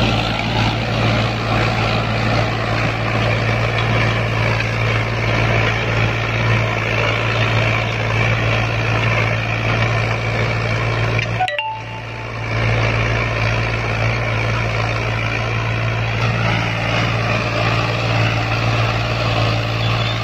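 Ghazi tractor's diesel engine running steadily under heavy load, pulling a 16-disc harrow with its discs set wide open, so that the tractor's wheels are slipping. The sound drops out briefly a little past halfway, then the engine drone resumes.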